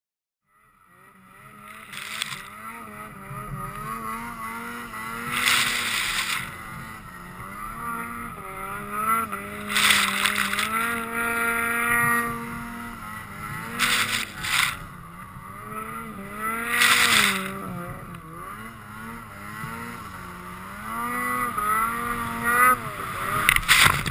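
A Ski-Doo Summit X snowmobile's two-stroke engine (800R E-TEC) running under throttle in deep powder. Its pitch rises and falls as the rider works the throttle, with several loud rushes of noise in between.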